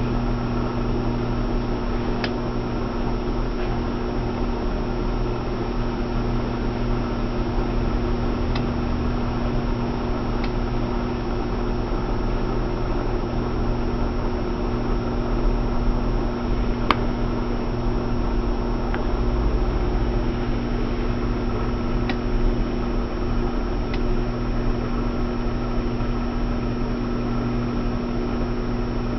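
Atlas clothes washing machine in its spin cycle: a steady motor hum with a constant tone, and a few faint clicks now and then.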